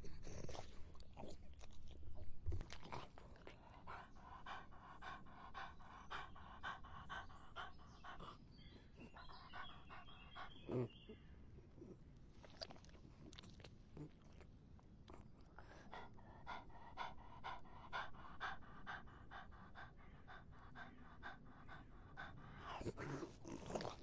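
A dog lapping water: a quick, even run of wet laps about four a second, in two long runs with a pause between them.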